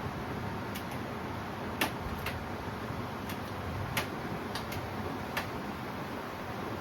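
Light metal clicks and taps from hand tools on engine parts, about eight of them at irregular intervals, over a steady background hiss.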